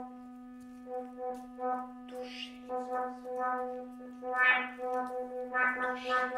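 Experimental music from a long tube instrument: a steady low drone with buzzy, horn-like notes pulsing on top of it, the pulses growing denser and louder after about four seconds, with a few airy rushes in between.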